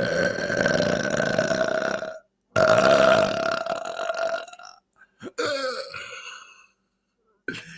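Loud, long drawn-out belches, each held at a steady pitch. One belch ends about two seconds in, a second long belch follows, and then a shorter one.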